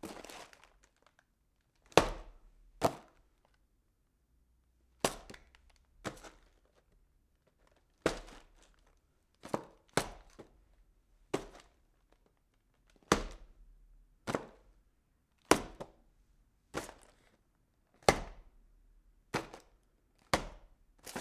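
Packing boxes being handled: a string of separate knocks and thumps, about one every second or so, each dying away quickly.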